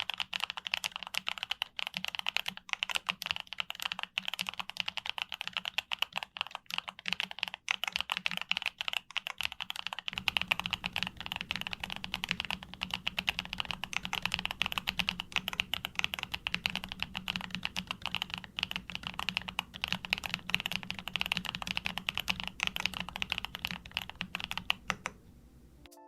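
Continuous fast typing on a YUNZII B75 Pro mechanical keyboard, a dense run of keystroke clicks. About ten seconds in the keystrokes take on a deeper, fuller tone, and the typing stops about a second before the end.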